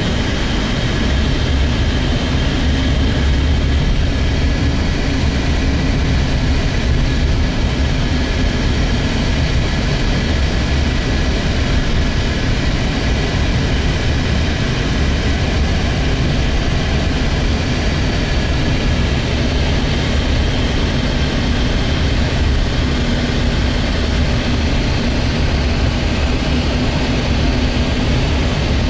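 Steady driving noise heard from inside a moving vehicle: a deep engine and road rumble that runs on without change.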